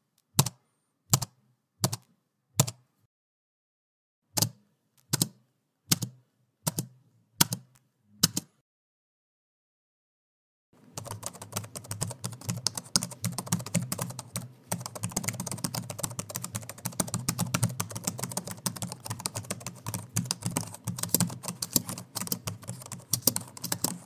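Computer keyboard keys: single keystrokes one at a time, about one every 0.7 seconds, with a short break partway through. After a pause of about two seconds, continuous fast typing starts about eleven seconds in.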